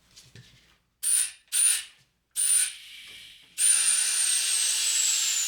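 Compressed air hissing into a tire through its valve stem, core left in, to seat the bead on a steel wheel: three short blasts with a high whistle, then a steady hiss from about three and a half seconds in, its whistle slowly dropping in pitch.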